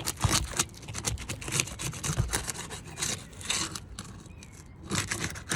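Pry bar scraping under asphalt shingle tabs, breaking the seal with irregular clicks and scrapes as the tabs are lifted.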